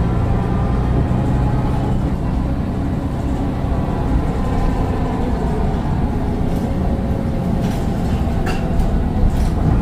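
Mercedes-Benz Citaro bus's Daimler OM906 6.4-litre diesel engine running steadily under way, heard from on board, with a faint turbo whine over the low engine note. A few sharp rattles or clicks come near the end.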